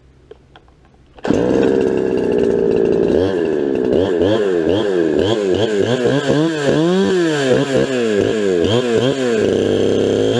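Ported two-stroke Farmertec Huztl 372XP clone chainsaw with a woods port, coming in abruptly about a second in at high speed. From about two seconds later its engine pitch swings up and down over and over, about twice a second, before it holds steady again near the end.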